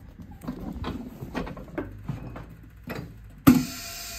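A run of irregular knocks and clicks from hand work on a workbench. About three and a half seconds in comes one loud sudden hit, and background music starts right after it.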